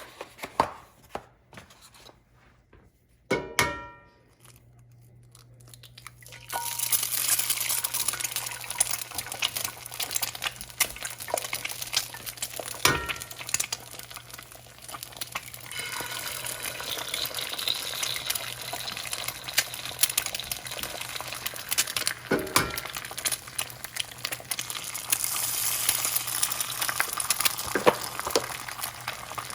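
A few clinks of kitchen utensils, one ringing about three and a half seconds in, then a low steady hum comes on. From about six seconds in, food starts sizzling in a hot pan, with utensil clicks and scrapes running through it.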